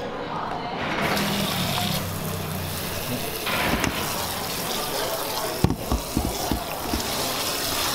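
Tap water running and splashing into a stainless steel bowl of strawberries in a sink, with a few light knocks about two-thirds of the way through.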